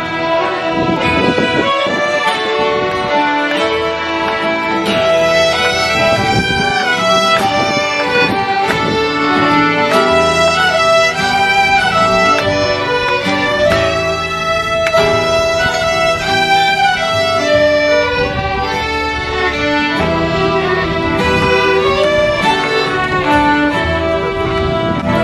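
Old-time fiddle jam: a group of fiddles bowing a tune together, backed by an upright bass, playing steadily throughout.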